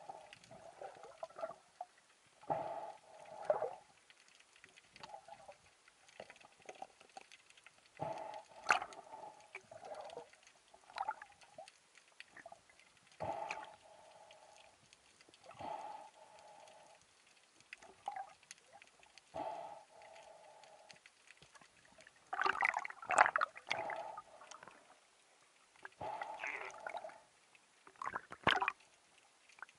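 Muffled underwater sounds heard through a camera housing: water sloshing in short bursts every few seconds, with sharp knocks and clicks, the loudest cluster a little past two-thirds of the way through.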